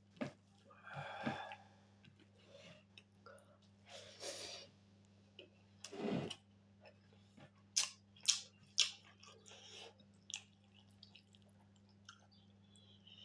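Close-up chewing and mouth sounds of someone eating pork and rice: irregular wet smacks and soft bursts, with three sharp clicks a little past halfway.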